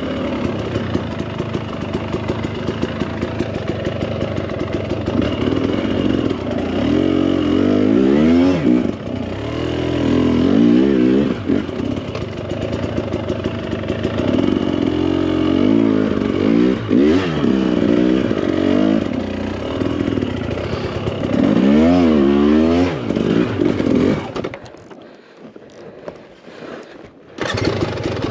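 2024 Husqvarna TE300 Pro's fuel-injected 300 cc two-stroke single ridden on a rough trail, revving up and easing off over and over, its pitch rising and falling. Near the end the engine sound drops away for about three seconds, then comes back suddenly.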